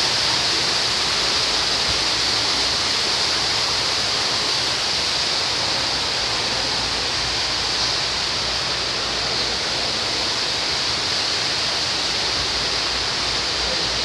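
Steady rushing noise with a strong, even hiss, unchanging throughout.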